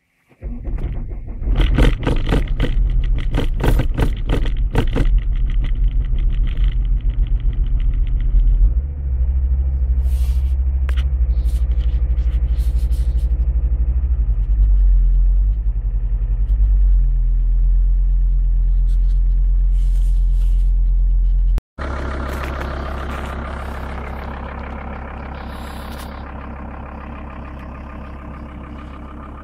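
Turbo-diesel engine of a 1998 Volvo V70 starting from cold at about −8 °C: it catches about half a second in and runs loud and clattery for the first several seconds, then settles into a steadier fast cold idle with its speed wavering briefly. After a sudden break near the end, the engine idles more quietly, fading slowly.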